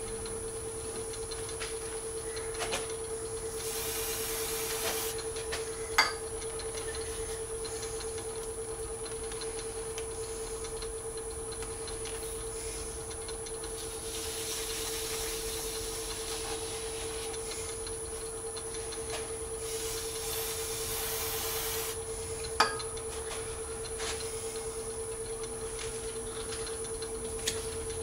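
A lathe runs steadily with a hum and a high whine while sandpaper is pressed against a spinning cast Alumilite resin globe in three hissing passes. Two sharp clicks stand out, one about six seconds in and one about two-thirds of the way through.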